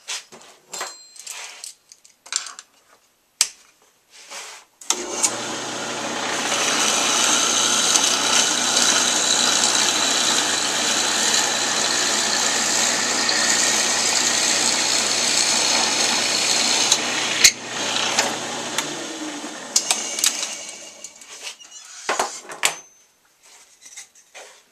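Benchtop drill press switched on about five seconds in: a steady motor hum with the noise of the bit boring into a piece of wood stood on edge, then switched off and winding down about two-thirds of the way through. Scattered clicks and knocks of handling before and after.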